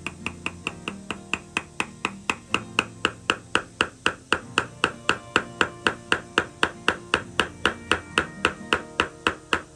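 Surgical mallet tapping a steel osteotome in quick, even light strikes, about four or five a second, growing louder over the first few seconds: the osteotome being driven up through the upper jaw bone to condense it and lift the sinus floor for a dental implant.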